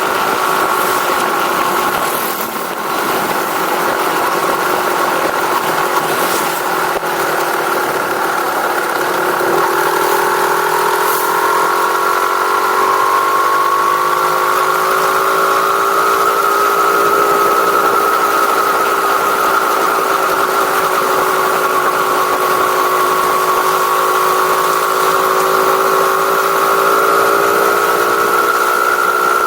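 Engine with its stock exhaust running steadily, its pitch rising a little about ten seconds in and then holding.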